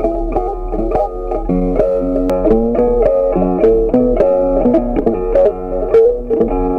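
Background instrumental music: a plucked guitar melody.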